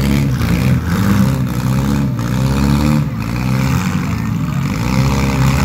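Demolition derby car engines revving loudly, their pitch rising and falling again and again.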